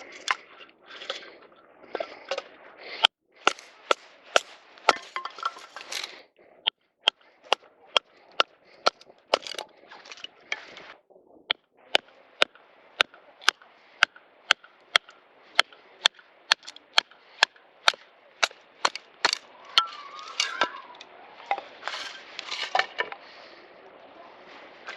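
Firewood being split by batoning: a wooden baton strikes the spine of a knife set in a log, making a run of sharp knocks about two a second, with short pauses and some rustling and cracking of the wood between them.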